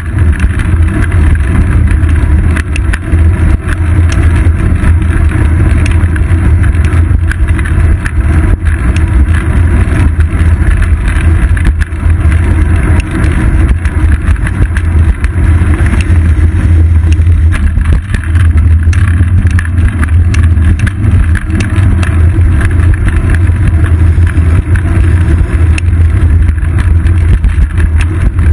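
Steady, loud rumble of wind and road vibration picked up by a GoPro Hero 2 mounted on a moving bicycle's seat post, with frequent small knocks from bumps in the pavement.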